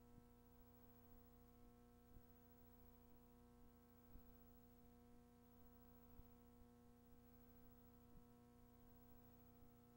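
Near silence: a faint steady electrical hum in several tones, with faint ticks about every two seconds.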